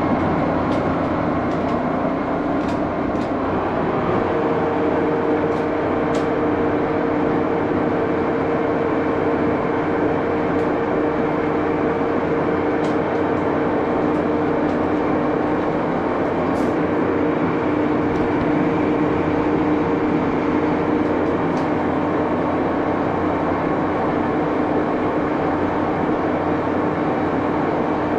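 An 83-year-old Baby Axelson lathe running, spinning an aluminum bar held in a four-jaw chuck: a steady mechanical running sound, with a steady tone joining in about four seconds in.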